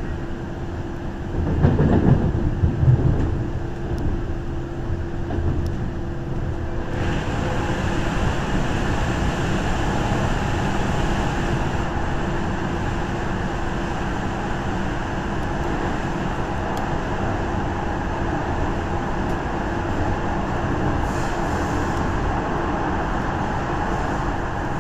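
MTR M-Train electric multiple unit running through a tunnel, heard from inside the leading car: a steady rumble of wheels and motors with a constant hum. There is a louder low rumble about two seconds in, and the running noise grows fuller from about seven seconds in once the train is inside the tunnel.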